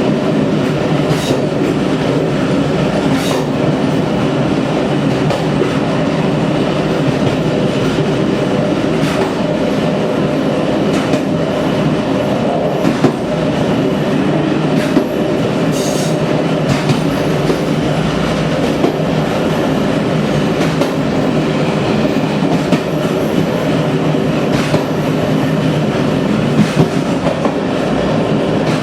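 Train running over rough, badly maintained track: a steady rumble of wheels on rail, broken by sharp knocks from the rail joints at irregular intervals, about every second or two, with a faint wheel squeal in the background.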